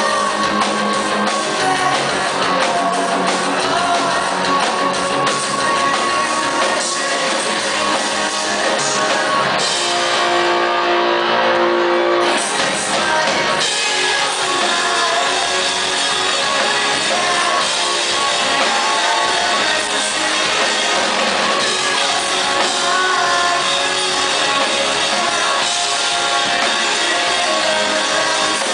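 Live pop-punk band playing loudly: lead vocals over electric guitars, bass guitar and a drum kit, in a large concert hall. About ten seconds in the cymbals and highest sounds drop out for a couple of seconds while a held note carries on.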